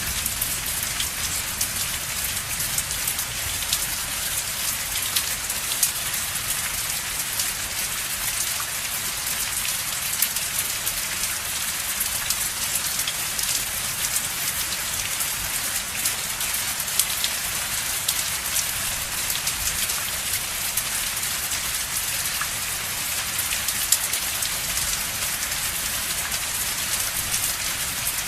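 Steady rain: a dense, even hiss of countless drops, with scattered individual drop ticks standing out now and then.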